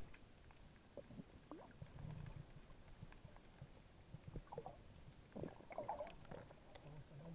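Faint, muffled underwater sound picked up by a submerged camera: low gurgling and rumbling, with scattered soft knocks and short bubbly chirps.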